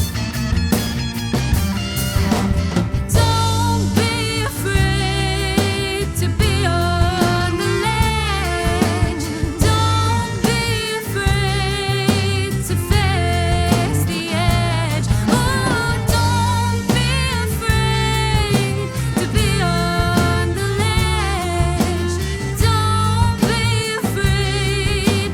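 A song played by a band: a lead singer with a wide vibrato over drum kit, bass and guitar. The singing comes in about three seconds in, after a few strummed chords.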